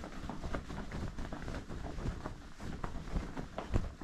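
Shirt fabric rustling and crinkling as it is handled on its hanger, with irregular small bumps of handling noise and a louder bump near the end.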